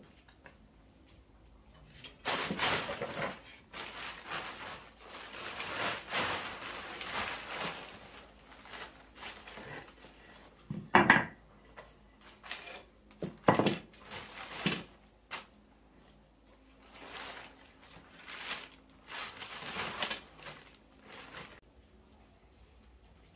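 Intermittent handling noise: stretches of scraping or rubbing, and a few sharp wooden-sounding knocks near the middle.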